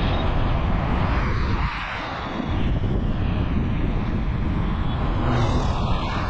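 Continuous rushing roar of road and wind noise from a moving vehicle, easing slightly about two seconds in.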